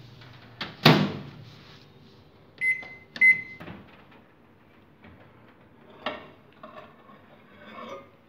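Microwave oven running with a low hum that stops about a second in with a click and a clunk of the door, then two short high beeps from the microwave near three seconds in, followed by quieter handling noises.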